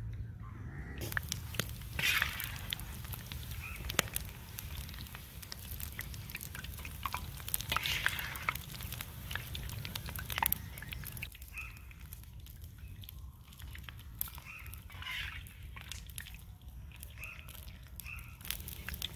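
Pakoras deep-frying in hot oil in a wide karahi over a wood fire: steady sizzling with many small crackles, and a metal skimmer stirring through the oil now and then. Birds call a few times.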